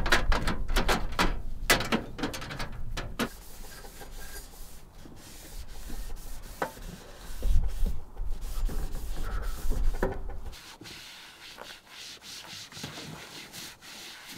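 A paper towel wiping down a metal two-burner camp stove in quick back-and-forth strokes, then a wipe being rubbed over a plastic folding tabletop.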